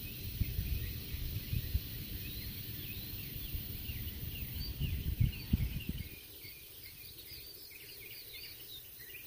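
Small birds chirping over and over, many short quick notes, with a low rumble underneath that stops about six seconds in.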